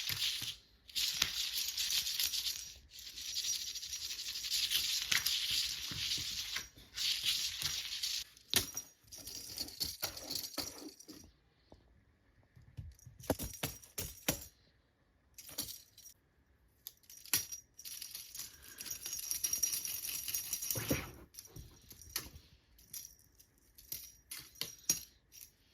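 Small hard objects rattling and jingling in irregular bursts, with short pauses between.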